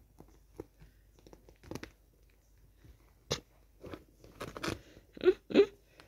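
A kitten scrambling over a pillow and bedding: scattered light scratches and rustles, then crunchy rustles that grow louder, the loudest two close together near the end.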